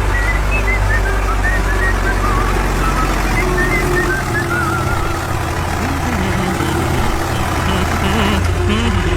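A construction machine's engine running with a steady low hum. Wavering high whistle-like tones sound over it in the first few seconds, and a wavering lower tone joins in near the end.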